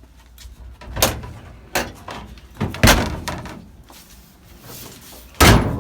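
A few separate thuds and knocks, irregularly spaced, the loudest two near the middle and near the end.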